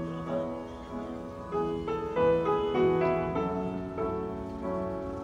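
Background music: a gentle piano melody of held notes changing every half second or so.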